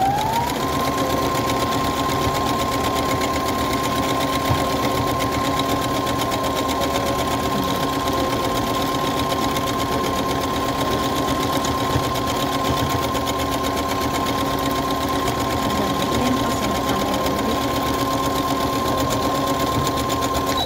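Brother HC1850 computerized sewing machine sewing out a lettering stitch. Its motor whine rises in pitch as it speeds up at the start, then holds steady over the needle's fast rattle, and stops abruptly near the end.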